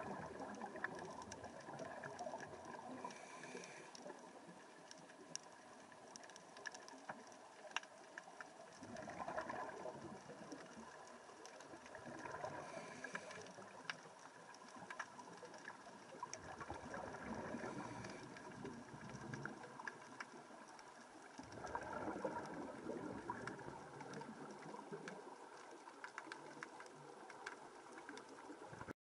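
Underwater sound of a scuba diver breathing through a regulator, heard through the camera housing: exhaled bubbles gurgle in swells every few seconds over a steady hiss, with faint scattered clicks between them.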